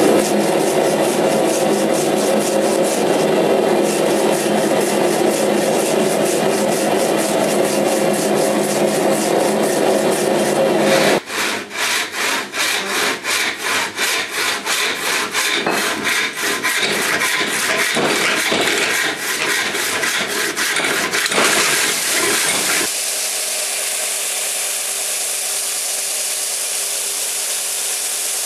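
Hand wire brush scrubbing a forged steel hammer head clamped in a vise. About 11 seconds in it gives way to a hand saw cutting a sheoak handle blank, two or three strokes a second. Near the end a belt grinder runs steadily.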